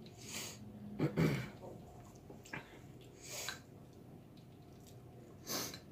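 Soft eating sounds between words: four short, quiet mouth and breath noises of people chewing, spread irregularly over a few seconds.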